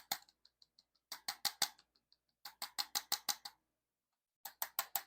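ArthroStim handheld chiropractic adjusting instrument pulsing against the spine, a rapid run of light clicks at about nine a second, in three short bursts with pauses between.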